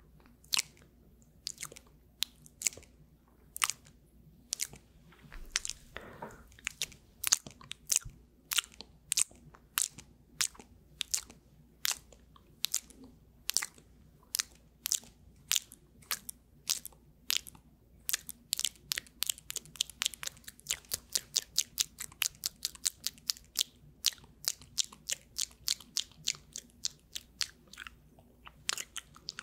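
Close-miked ASMR mouth sounds: a steady run of wet mouth clicks and lip smacks, about two or three a second, quickening to about four a second past the middle.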